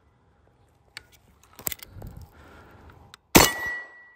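A few light metallic clicks of handling on a Type 81 light machine gun, then a single loud 7.62x39 rifle shot a little over three seconds in, with a thin ring hanging on after it.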